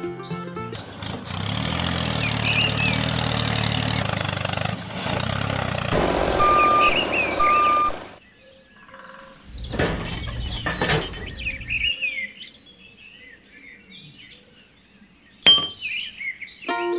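An engine running for about seven seconds with birds chirping over it and two short beeps near its end. Then comes a shorter burst of noise, fainter bird chirps, and a sharp click near the end.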